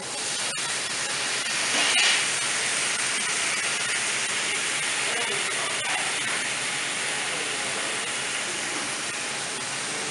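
Food sizzling in frying pans over high gas burners on a commercial kitchen range. It is a steady hiss that swells briefly about two seconds in.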